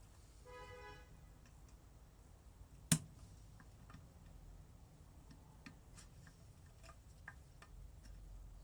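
Small metal parts of a water pump assembly being handled: scattered light clicks and taps, with one sharp click about three seconds in. A brief ringing tone sounds about half a second in.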